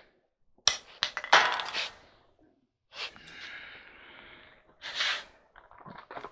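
Handling noises from small parts and tools: a few sharp clicks and knocks about a second in, soft rustling in the middle, another knock near 5 seconds and a few light ticks near the end.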